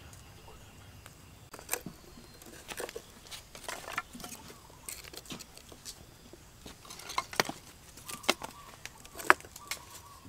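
Irregular sharp clicks and crackles as thin dry kindling is pushed into a clay stove and catches fire, with one louder crack near the end.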